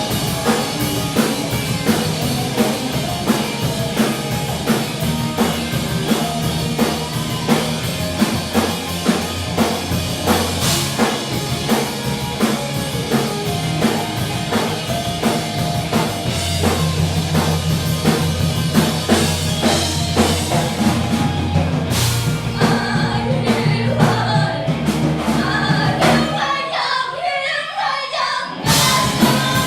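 Rock-style music with singing over a steady drum beat; the bass drops out for about two seconds near the end.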